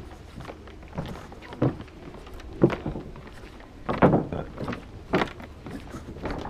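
Irregular hollow knocks and thumps, roughly one a second, the loudest a cluster about four seconds in, over a low steady hum.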